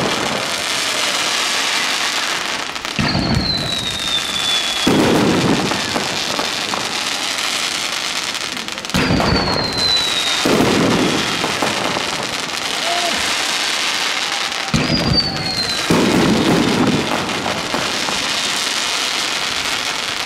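Fireworks going off: a continuous crackling hiss from the rising tails and bursts. About every six seconds a whistle falls in pitch, and deep booms follow it.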